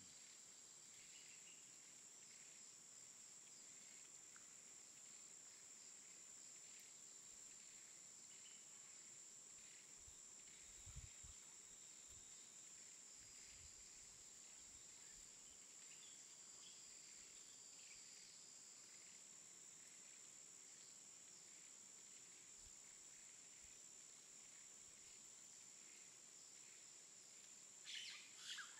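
Near silence: a faint steady high-pitched tone with scattered faint chirps, and a few short, louder chirps near the end.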